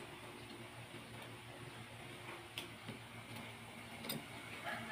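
A few faint, sparse metallic clicks of small steel parts being handled and fitted into a 1911 pistol frame, over a steady low hum.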